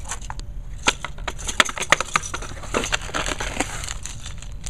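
Clear plastic bags of Mega Bloks pieces being handled, crinkling with a quick run of sharp, irregular crackles and clicks.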